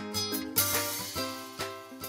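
Intro music: a plucked-string tune, notes struck one after another and each ringing away, dying down near the end.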